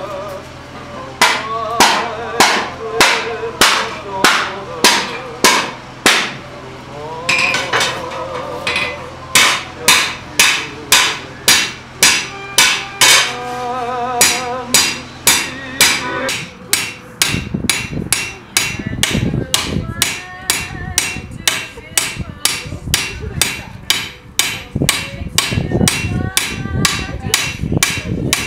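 Hand hammer striking a steel disc held in tongs on an anvil, hammering a dimpled texture into it. The blows come steadily about twice a second, then speed up to about three a second about halfway through.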